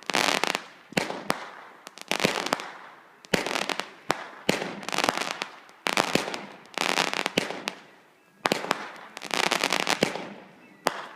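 Fireworks going off in repeated bursts of dense popping and crackling, roughly once a second, each burst dying away quickly before the next.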